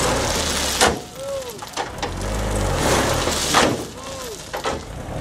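Mitsubishi Fuso dump truck tipping a load of stone: the diesel engine runs while rocks pour and rattle out of the raised bed. Two sharp knocks nearly three seconds apart, each followed by a brief wavering tone.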